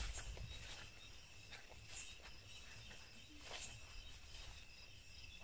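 Crickets trilling steadily in the night, one continuous high note, with a few soft footsteps and scuffs on grass.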